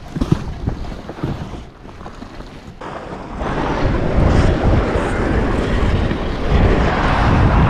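Gusty wind buffeting the microphone, with plastic tarps over dirt jumps billowing and rustling in it. The wind grows louder about three and a half seconds in.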